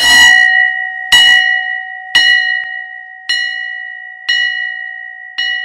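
A bell struck about once a second, six strokes in all. Each stroke rings out in several clear tones and fades before the next.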